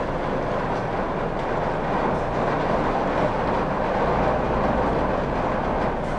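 Heavy rain pouring down, a steady dense hiss with no breaks.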